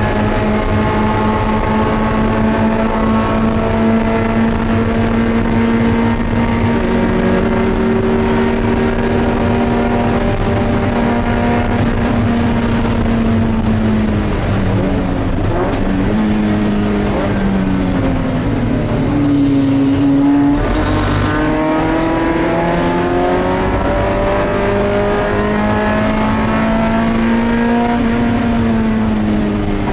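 Spec Miata Mazda MX-5's four-cylinder racing engine heard from inside the cabin. It holds high revs for the first dozen seconds, then the revs fall and change in steps about halfway through, as for braking and downshifts. A short burst of noise comes about two-thirds through, after which the engine climbs back up to high revs and eases off again near the end.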